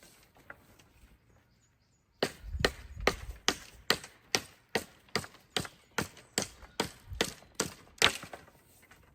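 Wood being chopped with a hand tool: a run of about fifteen quick, even blows, a little over two a second, starting about two seconds in.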